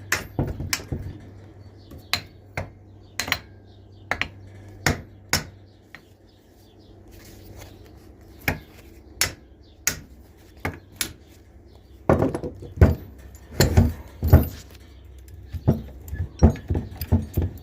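Clipper belt lacer's metal parts clicking and clacking as they are worked back and forth to free up the rust. The clacks come irregularly, thickening into a quick run about twelve seconds in, over a low steady hum.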